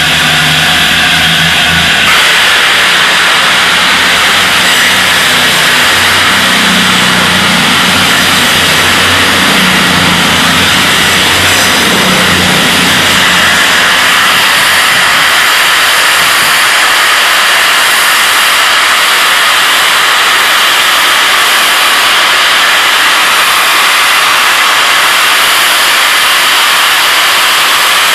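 Safety valves of the LNER A4 Pacific steam locomotive 60019 Bittern blowing off: a loud, steady roar of escaping steam that starts about two seconds in. For the first half the diesel engines of a CrossCountry Voyager unit hum underneath as it runs past, then fade.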